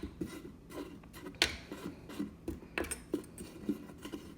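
Irregular light clicks and knocks at a kitchen sink, about three a second, as baking soda is pushed down into the garbage disposal drain.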